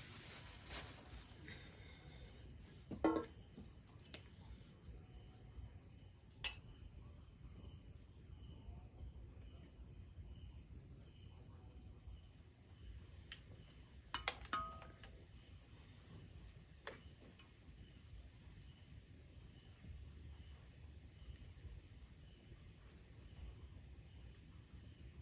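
Faint, high-pitched fast pulsing trill of night insects, running steadily with a brief break about nine seconds in and stopping shortly before the end. A few sharp clicks and knocks cut across it, the loudest about three seconds in and another pair around fourteen seconds in.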